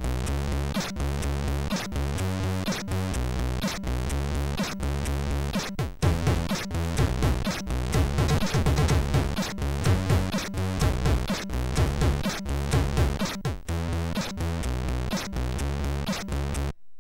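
Commodore 64 SID chip music: a synthesized chiptune with a repeating bass pattern and a steady beat, which cuts off suddenly near the end.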